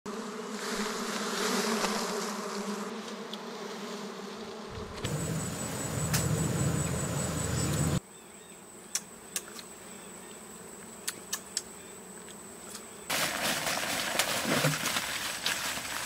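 Wild honeybees clustered on an open comb, buzzing in a steady hum through the first five seconds. Then come short cut-together stretches: a low rumbling noise, a quieter part with a few sharp clicks, and from about thirteen seconds in a loud rustling hiss.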